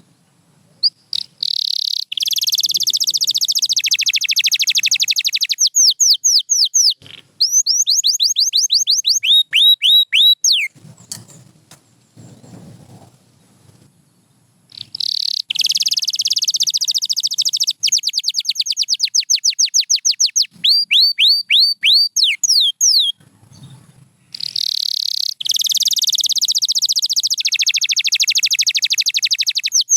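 Canary singing in three long phrases of fast, rolling trills and runs of quick downward-sweeping whistled notes, with a pause of a few seconds near the middle and a shorter one later.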